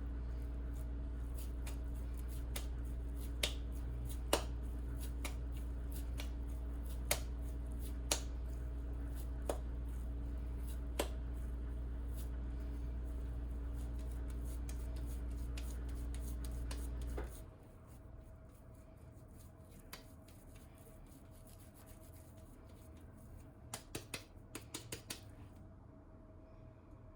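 A steady low electrical hum with a few fixed tones cuts off suddenly about two-thirds of the way through. Scattered light clicks and taps sound over it, with a quick run of clicks near the end.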